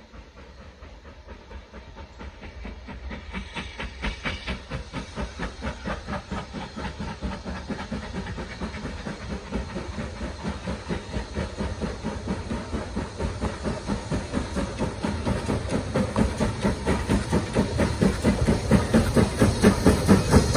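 BR Standard Class 4MT 2-6-4 tank steam locomotive approaching under power, its exhaust beating in a steady rhythm that grows steadily louder as it nears.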